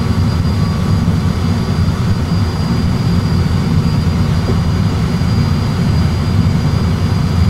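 Steady low rumble in an Airbus A320 cockpit during landing rollout: engines back at idle with reverse off and the aircraft rolling down the runway under manual braking. A faint steady high whine runs over the rumble.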